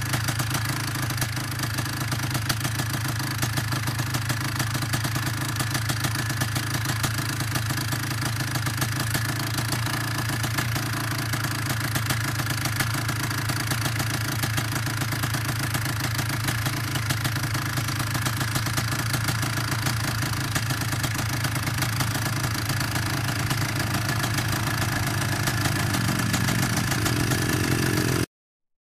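Small off-road vehicle engine idling steadily close by. In the last couple of seconds a rising engine note comes in as a rider approaches, then the sound cuts off abruptly.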